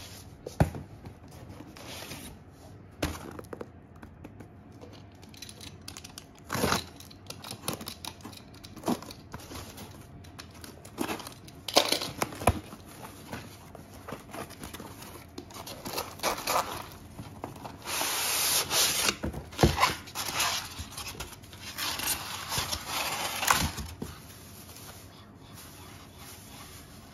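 A cardboard box being opened by hand: flaps torn and pulled open with scattered knocks and crinkles. In the second half come longer stretches of scraping and rubbing as polystyrene foam packing blocks are pulled out of the box.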